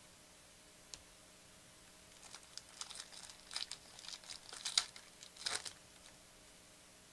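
Plastic wrapper of a trading card pack crinkling in a run of short, faint rustles as it is opened and the cards come out, after a single click about a second in.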